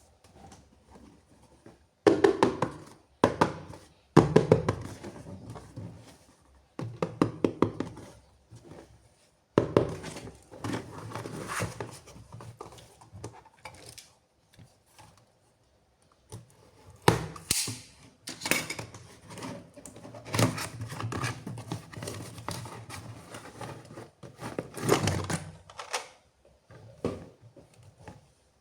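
Toy packaging being handled and opened by hand: irregular bursts of knocks, clicks and rattles, with short pauses between them.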